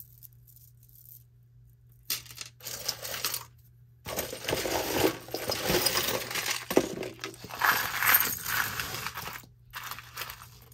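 Metal costume jewelry jingling and clinking as a tangle of chains and pieces is handled and pulled apart. It starts about two seconds in and is busiest in the second half.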